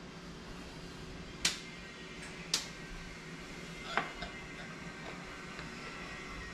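A knife clicking sharply three times against the rim of a pie dish while excess pastry is trimmed off, over a faint steady hum.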